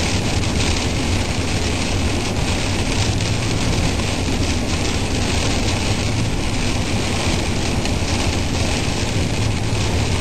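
Steady rushing noise of heavy rain and wind in a night thunderstorm, with a constant low rumble underneath.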